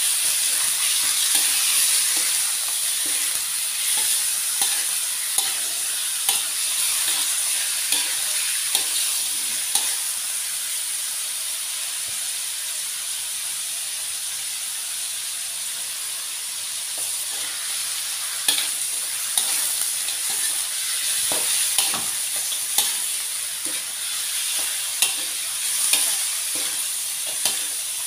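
Chicken pieces sizzling in hot oil in a metal wok, with a metal spatula scraping and clinking against the wok as they are stirred. The clinks come in scattered clusters, sparse in the middle and most frequent in the last ten seconds.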